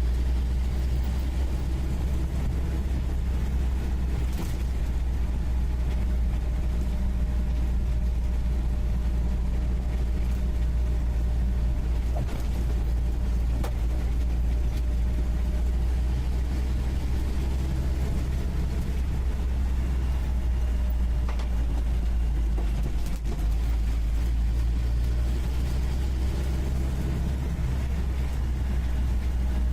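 UAZ 469B's four-cylinder petrol engine running steadily while driving, heard from the passenger seat inside the cabin as a deep, even drone. A few brief knocks are heard along the way.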